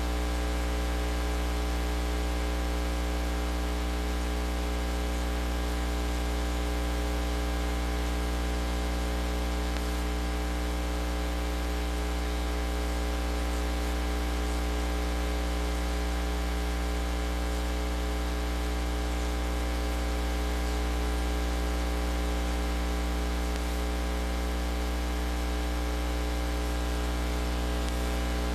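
Steady low electrical mains hum with many overtones, under a layer of hiss; nothing else is heard.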